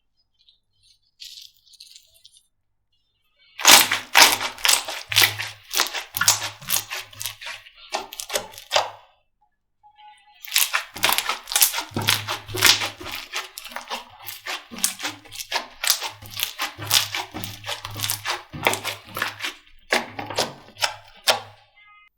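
Slime being squeezed and poked, with rapid crackling clicks and pops and soft thuds, in two long runs separated by a brief pause.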